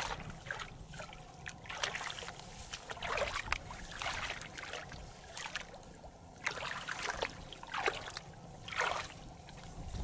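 Shallow muddy water splashing and sloshing as hands grope through it, in irregular bursts a second or so apart.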